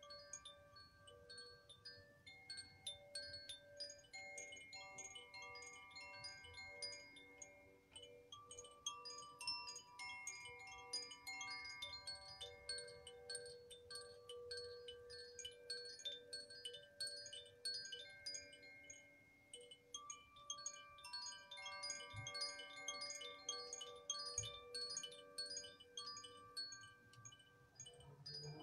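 Chimes ringing softly: a steady patter of small, high tinkling strikes over many overlapping, sustained tones of different pitches.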